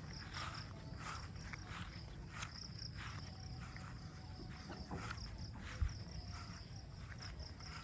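Crickets chirping in a steady, pulsed high trill, with soft footsteps and a single thump about six seconds in.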